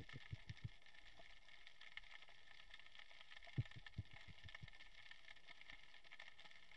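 A free-diving spearfisher's underwater throat sounds, made to lure fish closer. There are two quick runs of short, low clicks: about five at the start and about six more around three and a half seconds in. A faint steady underwater hiss lies beneath.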